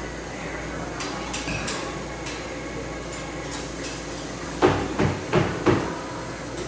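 A metal spatula chopping down on the frozen cold plate of a rolled ice cream counter, breaking up brownie chunks in the freezing ice cream base: four sharp knocks about three a second in the second half, after a few lighter clicks.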